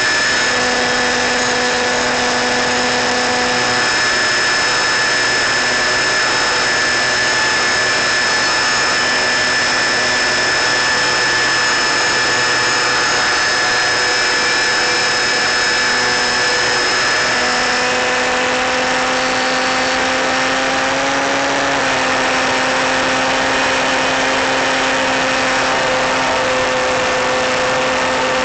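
Electric motor and propeller of an FPV model plane in flight, heard through the onboard microphone: a steady whine over a constant rushing hiss, its pitch shifting a little about two-thirds of the way through.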